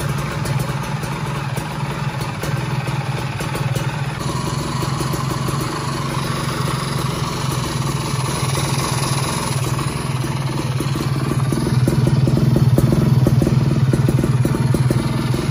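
Freshly rebuilt Kawasaki Ninja two-stroke engine running on its first start-up test. It idles steadily, then runs louder from about three-quarters of the way through as it is given a little throttle.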